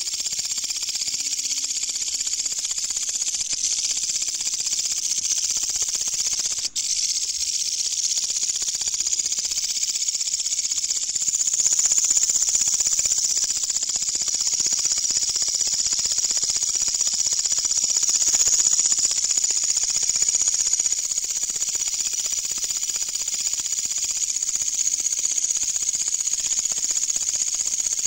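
Katydid stridulating: a loud, continuous, high-pitched buzzing hiss that cuts out for an instant about seven seconds in.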